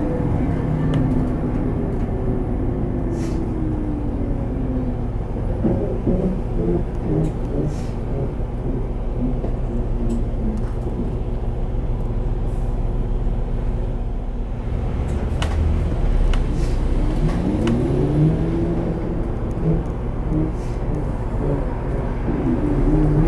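Inside an Isuzu Erga Hybrid city bus with an automated manual transmission, heard over steady road rumble. The drivetrain whine falls in pitch over the first few seconds as the bus slows, then rises twice near the end as it pulls away and gains speed.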